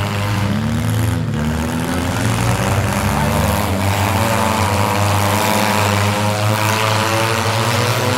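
Engines of several midsize street stock demolition derby cars running and revving at once, loud and steady, their pitch rising and falling.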